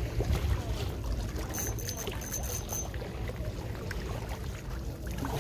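Wind on the microphone and water at the shoreline, a steady low rumble. A faint thin high whine sounds briefly about one and a half seconds in.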